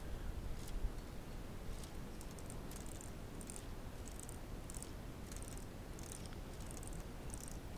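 Light plastic clicks from a K'nex car's swinging-weight ratchet drive, coming irregularly about twice a second over a low rumble. The motor is slowing on a draining supercapacitor, so the drive has dropped into low gear.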